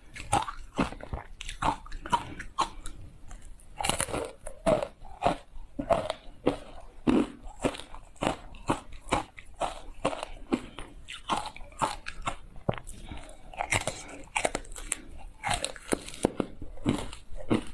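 Ice cubes coated in matcha powder being bitten and chewed, close to a lapel microphone: a steady run of sharp, irregular crunches, several a second.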